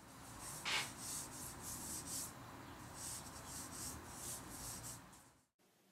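Faint, scratchy strokes of a fine double-zero paintbrush loaded with India ink on paper, a run of quick short strokes one after another.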